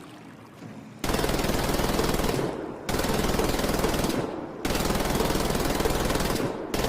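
MG-46 machine gun firing three long bursts at a very high rate, the shots blurring into a continuous rattle. Each burst trails off briefly before the next one starts.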